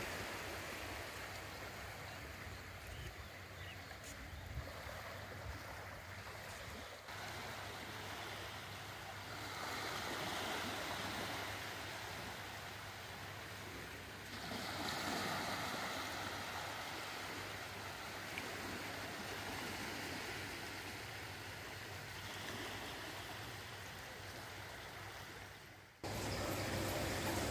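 Sea waves washing in: a steady rush of water that swells twice in the middle, then cuts abruptly to a louder rush near the end.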